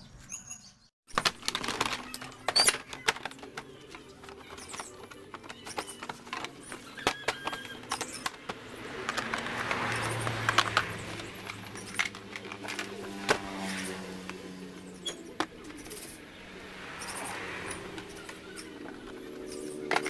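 Plastic body panels and the under-seat storage box of a Yamaha Xeon scooter being refitted: a run of irregular clicks, knocks and clinks of plastic and tools.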